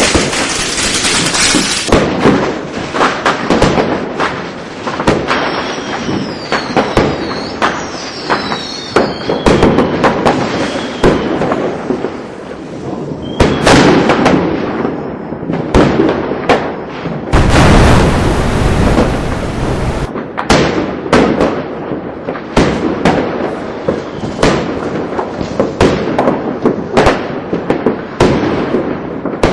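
Fireworks going off: rapid bangs and crackling pops, with several whistling fireworks gliding in pitch between about five and nine seconds in. About seventeen seconds in, a loud rushing hiss lasts about three seconds and stops suddenly.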